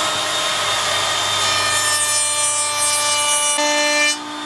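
Router table running with a round-over bit, a steady whine, while the corner of a maple box is fed past it. The bit cutting the wood adds a hissing rasp for about two seconds in the middle. The sound drops away a little after four seconds.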